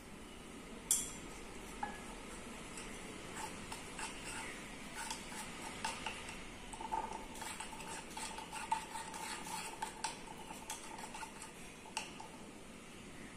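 Glass stirring rod clinking and scraping against a glass beaker while glucose is stirred for dehydration, the mixture darkening to brown. A sharp clink about a second in is the loudest, and a faint ringing tone is held for a few seconds midway.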